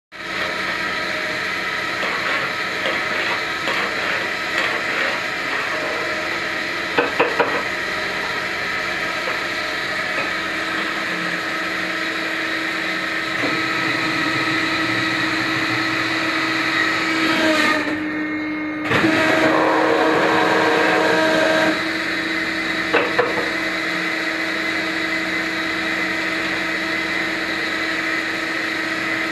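Kue koya cookie-making machine running with a steady mechanical hum and several steady whining tones. A few short knocks come about a quarter of the way in and again past three-quarters, and the machine gets louder for a few seconds a little after halfway.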